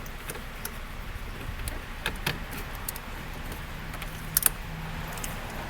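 Scattered light clicks and rattles of plastic dashboard trim and an auxiliary audio cable being handled and fed behind the panel, over a faint steady hum.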